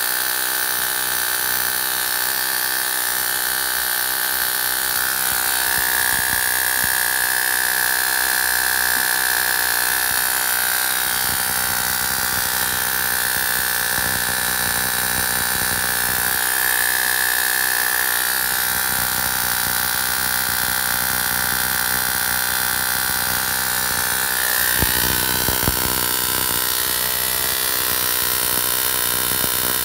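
High-voltage Cockcroft-Walton multiplier rig running: a steady electrical buzz and hiss with a high whine that shifts in pitch a few times. There is a brief burst of crackling a little before the end.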